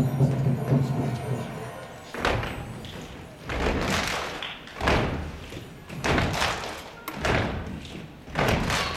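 A held music chord dies away over the first second or two. Then a slow, even beat of heavy thumps starts, about one every second and a quarter.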